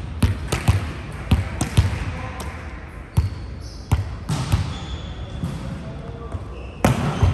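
Volleyball being hit and bouncing on a sports-court floor: an irregular series of sharp slaps and thuds, about ten in all, with a few brief high squeaks.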